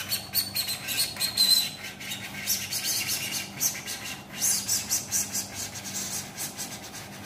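Hand-held duct-board cutting tool pushed along a foil-faced duct panel, its blade grooving the sheet at 90 degrees with a high squeal for the first second and a half, then a scratchy rasping scrape.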